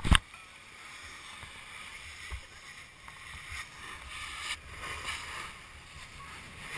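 Snowboard edges sliding and scraping over slushy spring snow: a steady hiss that swells and fades as the board turns, over an uneven low rumble. A sharp knock at the very start.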